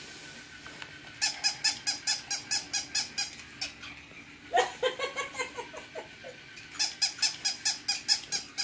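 Battery-powered toy Dalmatian puppy giving its electronic yapping: a quick run of short squeaky yips about five a second, a few longer yelps, then another run of rapid yips near the end.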